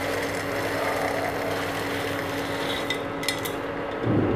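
Fried boondi pouring from a steel bowl into sugar syrup in a non-stick kadhai, then a spatula stirring and scraping them through the syrup, over a steady hum. A few sharp clicks come a little past the middle, and a louder knock just before the end.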